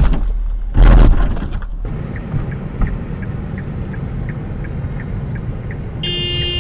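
A car hitting the back of a box truck, a short loud crash about a second in. Then steady engine and road rumble inside the following car, with a regular ticking about three times a second and a brief electronic beep near the end.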